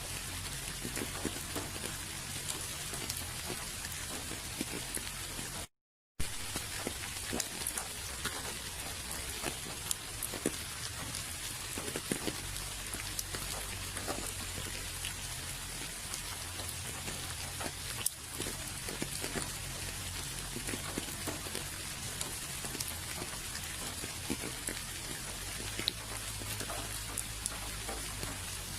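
Steady rainfall, an even hiss with many small drops ticking. The sound cuts out completely for about half a second about six seconds in, then resumes.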